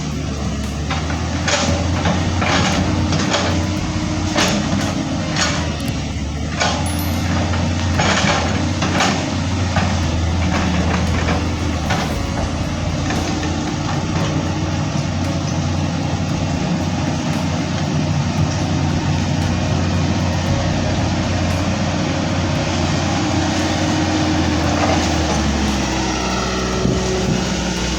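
Doosan crawler excavator's diesel engine running steadily under load, with a string of short sharp cracks and hisses in the first nine seconds or so.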